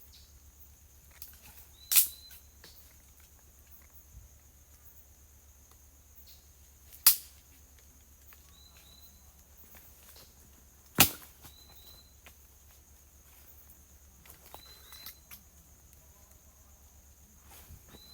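Steady high drone of insects, with short paired chirps repeating every few seconds and three sharp, loud snaps, the first about two seconds in and the others about five and four seconds apart.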